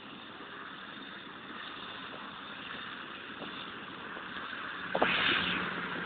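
Dash 8 turboprop airliner on its takeoff run, its engine and propeller noise building steadily louder. A sharp knock comes about five seconds in.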